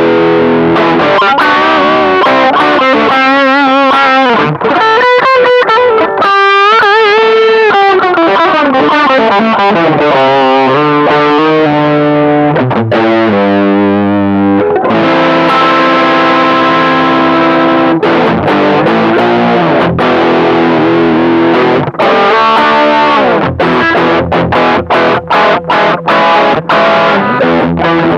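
Electric guitar played through a Caline High Peak high-gain distortion pedal: held distorted notes and chords with wavering vibrato and bends, then short, choppy stopped chords near the end.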